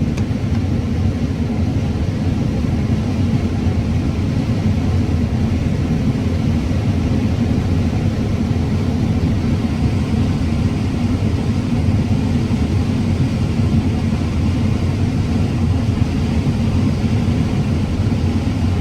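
Combine harvester running steadily while cutting corn: an even low drone of engine and threshing machinery, heard from inside the cab.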